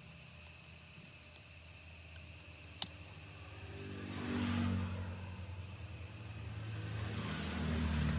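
Steady chirring of insects in the background, a single sharp click about three seconds in, and a passing vehicle's engine that swells up and fades around the middle, with another swelling near the end.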